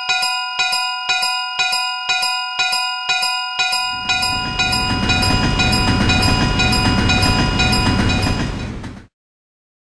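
Railroad crossing warning bell ringing about three times a second; about four seconds in, the rumble of a passing train joins it. Both cut off suddenly near the end.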